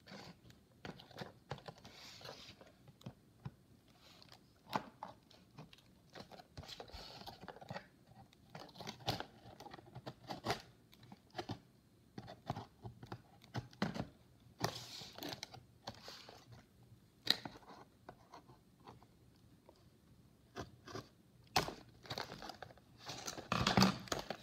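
Cardboard toy box handled and torn open by hand: scattered crinkles, scrapes and taps, with denser, louder tearing and rustling near the end.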